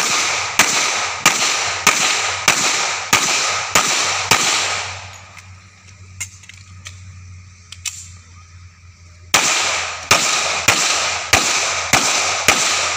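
Rapid .45-calibre pistol fire: a string of about eight shots at a steady pace of under two a second, each ringing out briefly, then a pause of about five seconds, then a second string of about six shots at the same pace.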